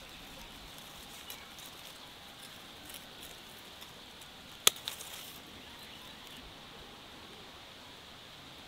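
Quiet outdoor garden ambience, broken about halfway through by one sharp click, followed by a couple of fainter ticks.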